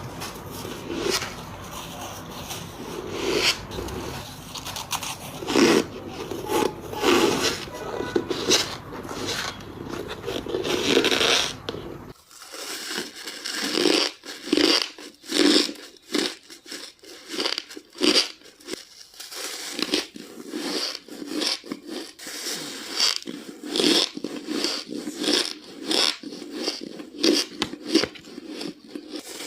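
Ice being bitten and chewed: a long run of separate crisp crunches, one after another. About 12 s in, the low background rumble drops away, leaving the crunches cleaner.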